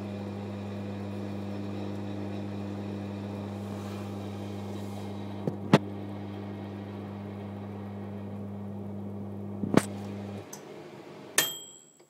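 Microwave oven running on defrost with a steady hum, with two sharp clicks partway through. The hum cuts off suddenly about ten seconds in, followed by a click and a brief high-pitched tone.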